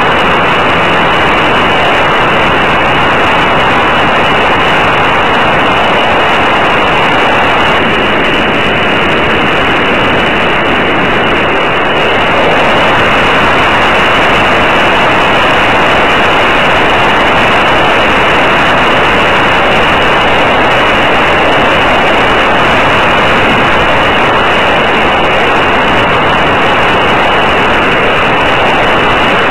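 Steady, loud engine and rushing-air noise of a Senior Telemaster radio-control model airplane in flight, picked up close by a camera mounted on the plane. It gets a little louder about twelve seconds in.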